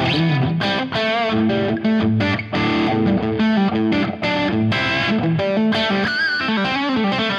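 Electric guitar played through a Fractal Audio FM3 amp modeller with its drive block switched on: a continuous crunchy, distorted run of picked notes and chords, with string bends and vibrato.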